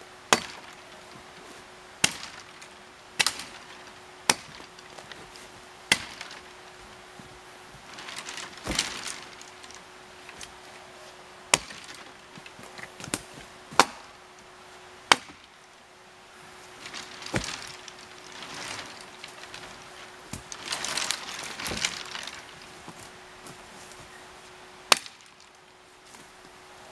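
Phantom Bevel Jersey-pattern axe with a 3.5-pound head limbing a felled white ash: about ten sharp chops into branches, coming at uneven intervals. Softer rustling of brush and branches comes between the chops.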